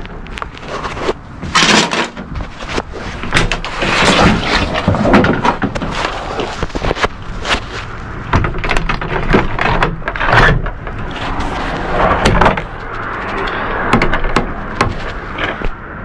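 Rear door of an ARE DCU commercial truck cap being worked: repeated clicks, clunks and rattles of its T-handle latch and roller catches against the frame, a test that the freshly adjusted latch now locks better.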